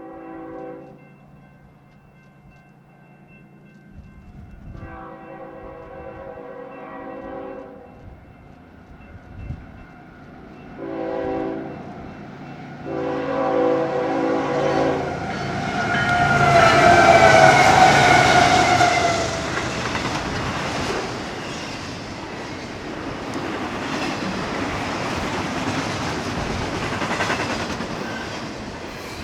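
Union Pacific freight locomotive's multi-chime air horn sounding in separate blasts, long, short, then a long final blast that is loudest as the locomotive passes and slides slightly down in pitch, a pattern typical of the grade-crossing signal. After that the intermodal train's cars roll past with a steady rumble of wheels on rail.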